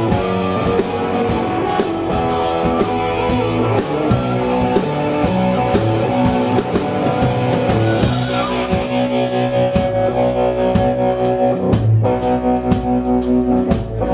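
Live blues band playing an instrumental passage: electric guitar, bass guitar and drum kit, with a harmonica cupped to the vocal microphone.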